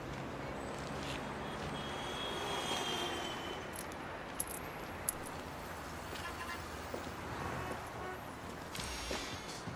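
Steady urban street ambience with traffic running, a brief faint high tone about two seconds in, and two light clicks a little after the middle.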